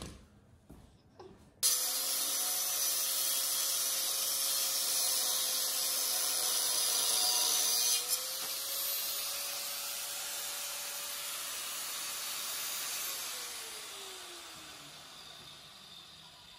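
Angle grinder with a cutting disc cutting through the tack welds on a steel exhaust pipe: a steady motor whine under a loud grinding hiss that starts suddenly about a second and a half in. Near the end the grinder is switched off and winds down, its pitch falling away.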